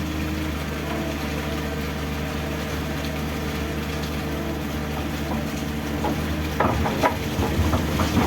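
Backhoe's diesel engine running steadily, with a burst of louder, irregular knocks and rattles near the end.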